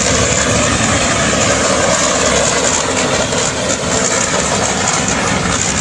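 Loud, steady machine noise, like an engine running, that starts and cuts off abruptly.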